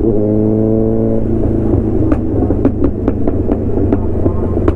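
Motorcycle engine revving, its pitch climbing for about a second, then running unevenly with a string of sharp pops and crackles.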